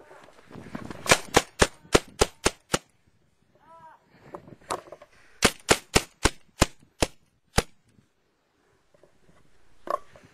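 Rapid gunfire: a burst of about seven shots at roughly four a second, then after a short pause a second burst of about seven, with a brief yelp between the two.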